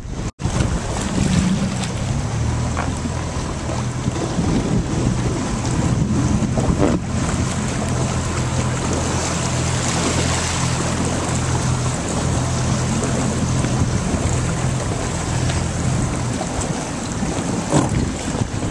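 Wind buffeting the microphone over choppy open water, with waves splashing and a low steady hum underneath; the sound drops out briefly just after the start.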